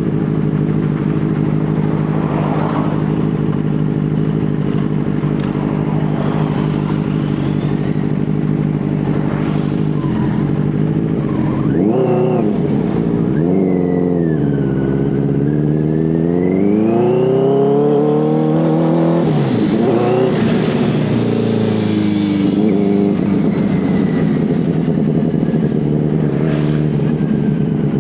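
Benelli TNT 600's four-cylinder engine with dual exhaust, ridden: a steady loud engine note for the first ten seconds or so, then the revs climb and drop several times as the bike accelerates and eases off.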